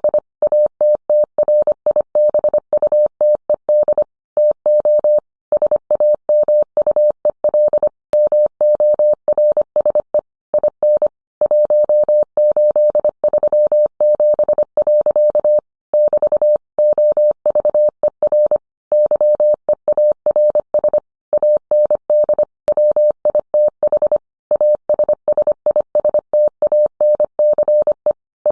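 Morse code sent as a single steady mid-pitched beep, keyed rapidly on and off into short dits and longer dahs, with brief gaps between characters and longer pauses between words.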